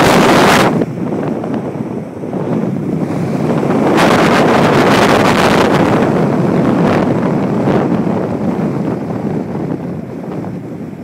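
Wind buffeting the microphone of a camera moving along a road, a loud rushing noise that surges in strong gusts right at the start and again from about four seconds in, then eases off.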